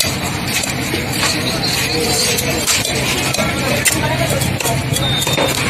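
Busy fish market din: a steady background of voices with frequent sharp clinks and knocks from fish cutting on a wet block.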